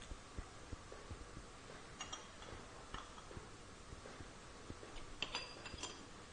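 Faint scattered clicks and light knocks of crocodile clips and wire leads being handled at glass beakers, with a few small glass clinks about two, three and five seconds in.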